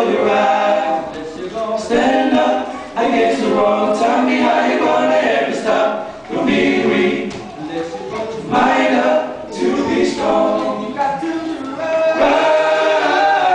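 A group of men singing an a cappella medley in harmony, voices only with no instruments, in phrases a second or two long with short breaks between them.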